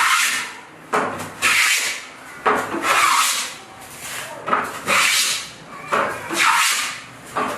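Rasping strokes of a hand tool worked back and forth on wood, about five strokes at an even pace.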